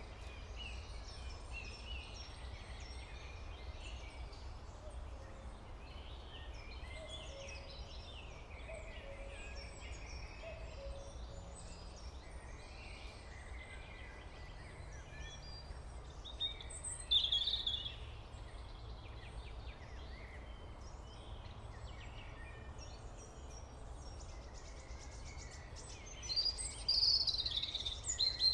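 Steady background noise with a low hum and scattered faint, short high chirps. The chirping gets louder twice, once a little past the middle and again near the end.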